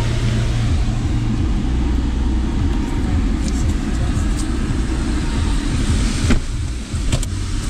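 Audi A4 B8's 2.0 TDI four-cylinder diesel engine idling steadily, heard from inside the cabin, with a couple of sharp clicks near the end.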